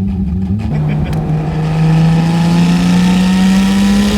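HKS-built 2.8-litre stroker RB26 straight-six with a T04Z turbo under load, heard from inside the car. The engine note drops about a second in, then climbs steadily and grows louder and hissier as it pulls.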